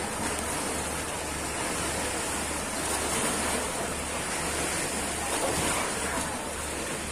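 Small lake waves lapping and splashing in shallow water, a steady wash of water noise, with a low pulsing throb underneath.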